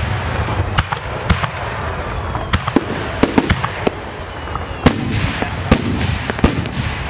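Fireworks display: aerial shells bursting in a rapid run of sharp bangs, more than one a second, over a steady background noise.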